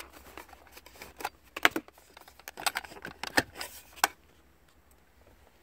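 Plastic wiring connector being unplugged and the wires around it handled: a quick run of sharp clicks and rattles that stops about four seconds in.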